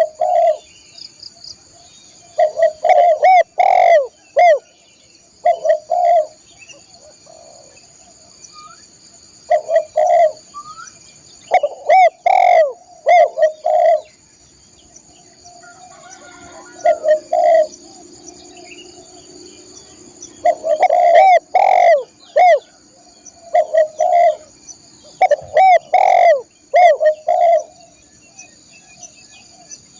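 Spotted dove cooing loudly in full song: repeated phrases of short, low, arched coo notes in groups of two to five, with pauses of a few seconds between some phrases. Faint steady high-pitched tones run underneath.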